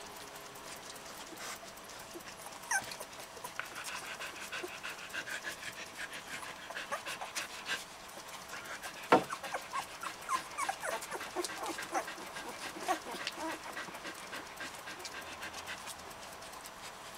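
Newborn puppies squeaking and whimpering in many short, high, falling chirps as they crawl about, with scattered small clicks and one sharp click about nine seconds in.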